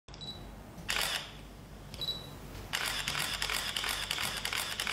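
Camera shutters clicking: a short high beep and a shot near the start, another beep and shot about two seconds in, then rapid continuous bursts of shutter clicks from a little before three seconds in.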